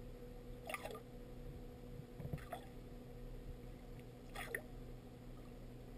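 Underwater sound of a musky lure being pulled through the water: four short, sharp clicking plops at uneven intervals over a faint, steady low hum.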